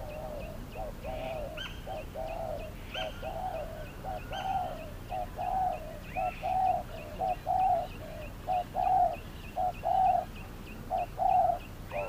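Spotted dove cooing: a long run of short, low coos that grow louder through the second half. Small birds chirp faintly at a higher pitch.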